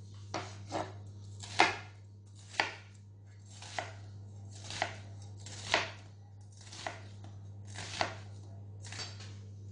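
Chef's knife slicing a red onion on a wooden cutting board, about ten cuts at roughly one a second, each a short, sharp knock of the blade on the board.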